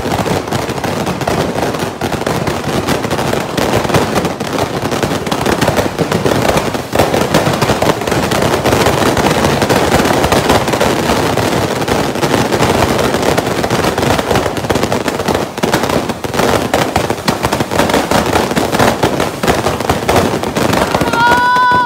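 Fireworks going off en masse: a dense, unbroken crackle and banging of many fireworks and firecrackers firing at once, with no pause. A steady whistling tone joins in shortly before the end.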